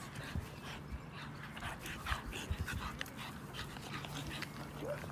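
Boston terrier and French bulldog puppies play-wrestling, making short, irregular dog sounds.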